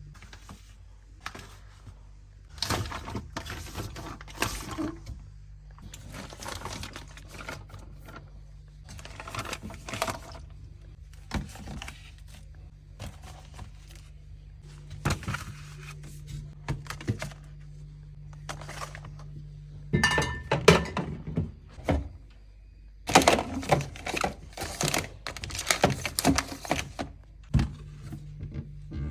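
Groceries and containers being handled and set down in a refrigerator: irregular thunks, knocks and rustling of packaging, busiest in the second half, over a steady low hum.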